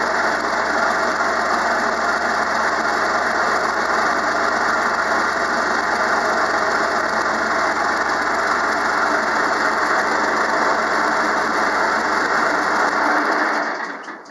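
Enclosed lifeboat's diesel engine running steadily, heard from inside the cabin; the sound fades out near the end.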